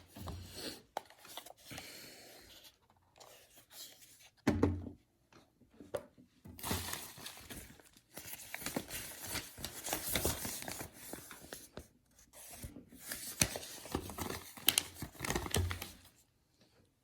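Camera packaging being handled and unwrapped: irregular crinkling and tearing of the wrapping, with small clicks and a couple of knocks.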